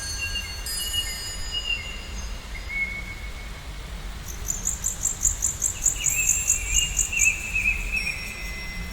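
Bird calls: a fast, even series of high chirps, about ten a second, through the middle, over a wavering whistled warble, with a low steady rumble underneath. Thin ringing chime tones fade out near the start.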